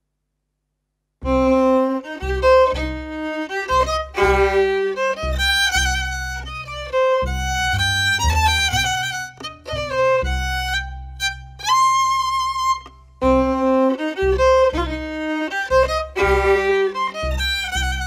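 Film score music: a violin melody over low sustained bass notes, coming in suddenly about a second in after silence.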